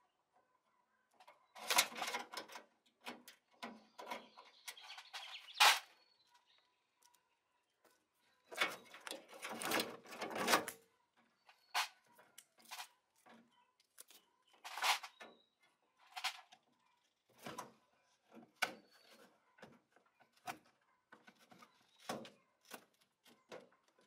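Wiring harness and plastic hoses being handled and pulled from the base of an old top-loading washing machine: irregular rustling and scraping, with sharp clicks and knocks in clusters separated by short pauses.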